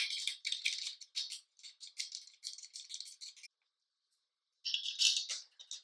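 Rattling and rustling as a metal chair seat-control mechanism is handled and set in place on the underside of the seat, in irregular bursts for the first three seconds or so. After a short pause, a second burst of rattling about five seconds in as loose screws are picked up.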